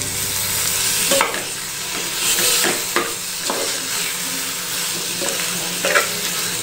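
Brinjal, tomato, onion and ginger-garlic paste sizzling in oil in an aluminium pot while a metal spoon stirs them. The spoon knocks and scrapes against the pot a few times.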